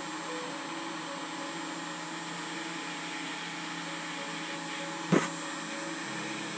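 Handheld hot air rework gun's blower running steadily while it heats replacement SMD LED pixels to solder them onto a P10 LED module. A single sharp click about five seconds in.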